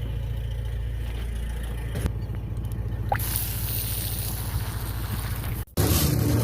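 A low, steady engine rumble, like a vehicle idling. It cuts off abruptly near the end, and a louder steady sound with a low hum takes over.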